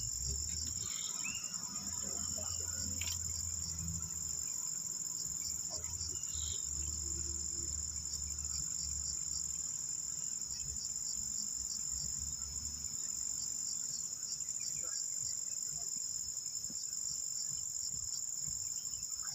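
Insects shrilling in a steady, high-pitched chorus, with short repeated chirps pulsing just beneath it. A faint low rumble runs underneath and fades out about two thirds of the way through.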